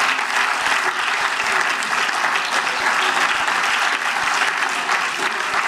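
Many people in a parliament chamber applauding, a steady clapping of many hands.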